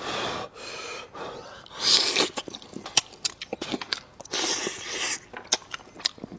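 A person eating meat close to the microphone: wet chewing and many sharp mouth clicks, with several loud hissing bursts of air, the loudest about two seconds in.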